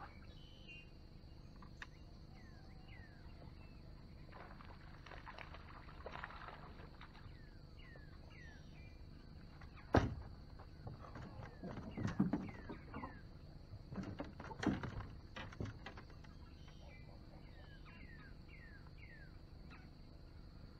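Swamp birds calling in short falling chirps over a steady high insect drone. About ten seconds in comes a sharp thunk as a small bass lands on the boat deck. Scattered thumps and knocks follow over the next several seconds as the fish flops and is handled.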